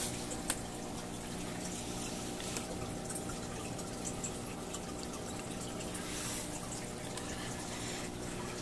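Aquarium filter running: steady trickling and dripping of water over a constant electrical hum from the pump, with a single sharp click about half a second in.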